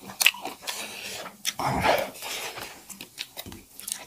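Close-up eating sounds: chewing and fingers picking rice off steel plates, making many small irregular clicks and smacks, with one longer, louder noisy sound a little under two seconds in.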